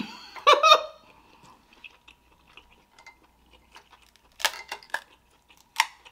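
Eating sounds: chewing, then the shell of a king crab leg cracked and pulled apart by hand, with a few sharp cracks about four and a half seconds in and another near the end. A short vocal sound comes just after the start.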